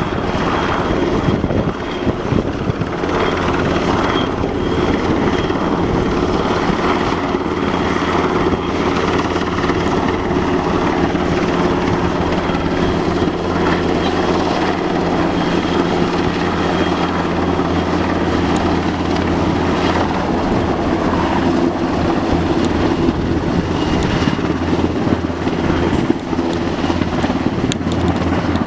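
Aircraft engine running steadily: a loud, even drone that holds one pitch throughout, with no rise or fall.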